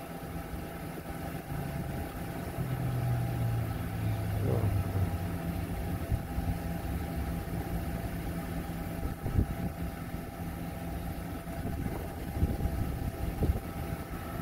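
GMC Savana cargo van's engine idling steadily, with a few faint knocks in the second half.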